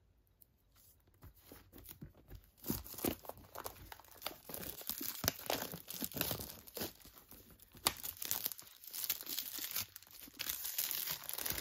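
Clear plastic shrink-wrap being torn and peeled off a metal tin, crinkling and crackling in quick irregular bursts. It starts about two and a half seconds in.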